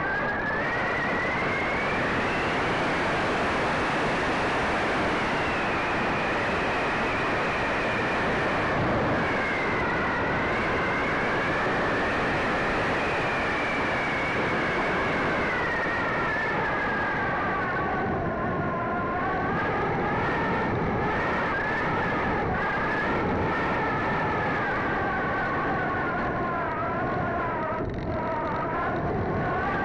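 Onboard sound of a Sky Surfer electric RC glider in flight: the motor and propeller whine, its pitch drifting up and down and wavering more in the second half, over a steady rush of wind.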